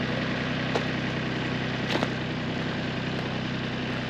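Kubota L3901 tractor's three-cylinder diesel engine idling steadily while it warms up, with a couple of faint ticks about one and two seconds in.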